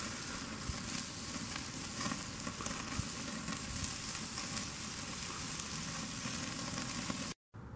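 Chuck eye steaks sizzling on the grate of a Weber charcoal kettle grill over hot coals: a steady searing hiss with small crackles, which cuts off abruptly near the end.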